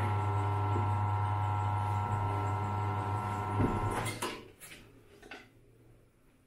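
The 100 V electric motor of a BL502-100 tyre changer running with a steady hum as its turntable turns a tyre off the wheel rim, then stopping about four seconds in, with a few clunks as it stops.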